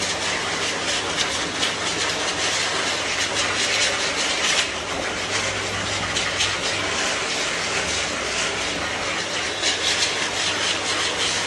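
Professional pet dryer (groomer's blower turbine) running steadily: a loud rush of air through the hose nozzle that flutters as it is worked over the dog's damp coat, over a low motor hum.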